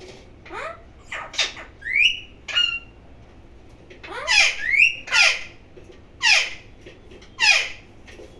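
Pet parrot squawking: about ten short, harsh calls that each sweep down in pitch, with two brief rising whistles about two seconds in.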